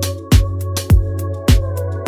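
Electronic background music with a steady beat: a deep kick drum a little under twice a second over a held bass, with sharp hi-hat-like ticks between the kicks.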